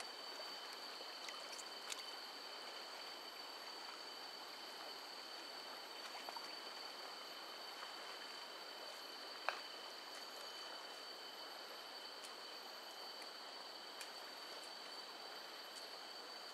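A river's water rushing steadily, with two thin, steady high-pitched whines running under it. A few faint clicks, and one sharp click about halfway through.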